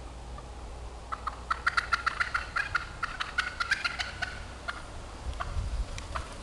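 Wild turkeys calling: a rapid, uneven run of short, sharp notes that starts about a second in and lasts about three seconds, followed by a few scattered single notes.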